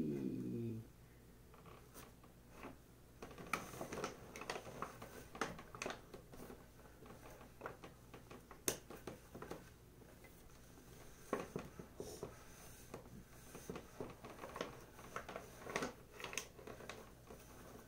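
Abrasive Scotch-Brite or synthetic wool pad rubbed by hand over a guitar body's finish: faint, irregular scratchy strokes, a few a second, coming in clusters. This is the scuffing stage that prepares the finish.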